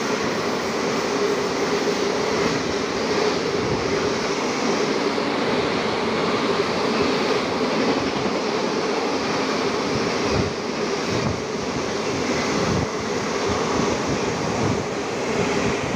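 Passenger coaches of an express train rushing past at speed close by: a steady, loud roar of wheels on rails. Past the middle the roar drops a little and a few low thuds come through.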